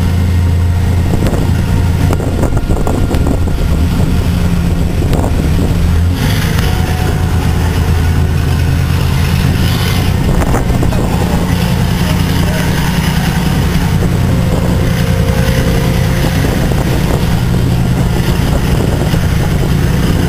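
Steady low drone of large diesel engines, with wind buffeting the microphone; the engine note changes about six seconds in.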